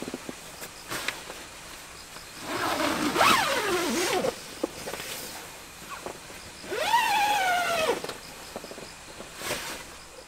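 Tent door zipper pulled shut in two long runs. The first, about two and a half seconds in, drops in pitch as it goes. The second, nearer the end, rises and then falls.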